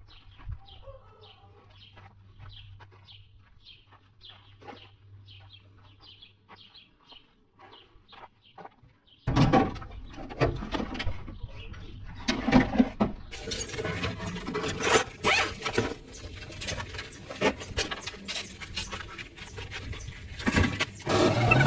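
A small bird chirping over and over, about two chirps a second, over a low steady hum. About nine seconds in, loud clattering and knocking suddenly takes over.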